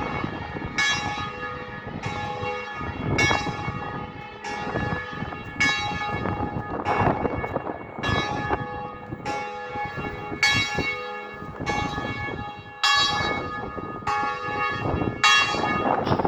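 Bells ringing, a strike about every 1.2 seconds, each note left to ring on under the next, with wind rushing across the microphone.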